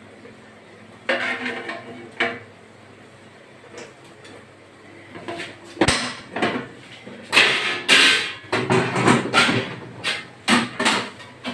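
Cooking spoon knocking and scraping against a pot as meat is stirred: a few separate knocks, a sharp knock near the middle, then a quick run of scrapes and clatter in the second half.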